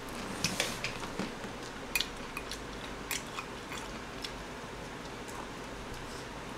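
Someone eating at a table: quiet chewing with a scatter of short, sharp clicks of chopsticks and a spoon against bowls, most of them in the first few seconds.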